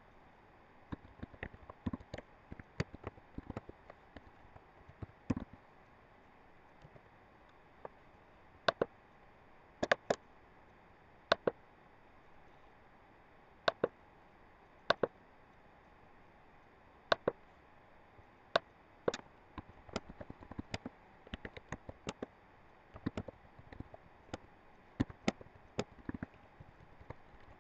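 Computer keyboard typing and mouse clicks: quick, irregular bursts of key taps near the start and through the last several seconds, with single and paired clicks a second or more apart in between.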